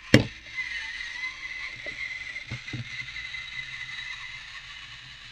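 TOMY FlipBot toy robot's small battery motor and reduction gearbox running with a steady whine, after a sharp click just at the start. Two soft knocks come about two and a half seconds in.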